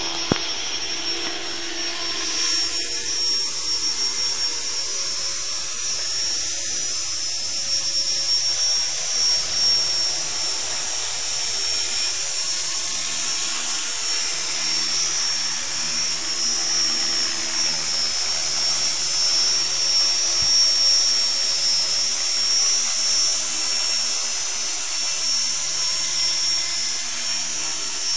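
Electric RC helicopter (E-sky Honey Bee King 2) spinning up and hovering: a steady high motor whine over the rotor's whoosh, growing louder about two seconds in.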